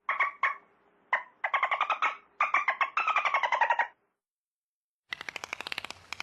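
Bottlenose dolphin burst-pulse calls: a few short bursts of rapid clicks, then two longer buzzing bursts whose pitch slides slightly downward. After a pause about four seconds in, a denser pulsed buzz starts about a second later.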